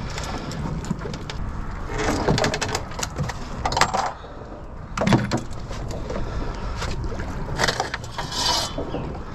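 Water sloshing against the boat's hull and the pilings, with scattered knocks, scrapes and rustles from a fish being unhooked and handled on the boat's deck.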